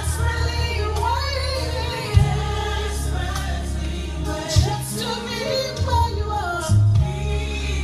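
Recorded gospel song played over loudspeakers: sung vocals with choir voices holding drawn-out notes over a deep, steady bass line.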